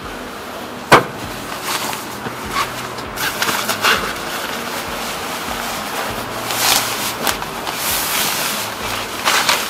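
A sharp click about a second in, followed by irregular rustling and handling noises.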